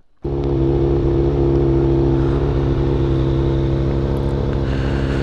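Sport motorcycle engine idling steadily at an even pitch, cutting in abruptly just after the start.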